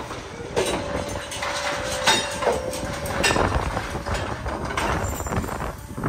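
Steel hoof-trimming crate being operated: metal gates and frame clanking and knocking, with a steady metallic squeal for about two seconds, starting about half a second in.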